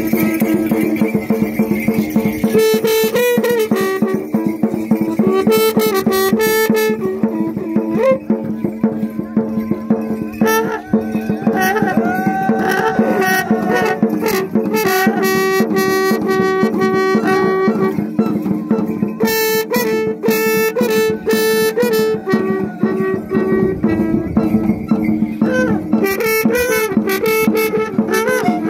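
Mapuche traditional music for the choike purrun dance: trutruka horns sound long held notes that step between a few pitches, over drumming. Bursts of shrill, rattling sound come and go higher up.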